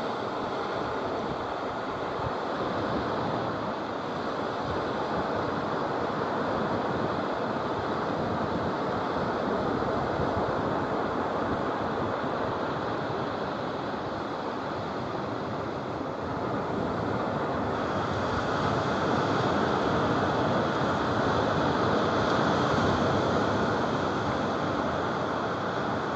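Sea surf breaking and washing up a sandy beach, a steady rush that swells a little louder about two-thirds of the way through.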